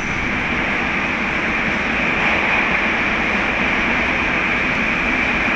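A Moskva-2020 metro train approaching through the tunnel into the station: a steady rushing rumble with a hiss on top, growing slightly louder.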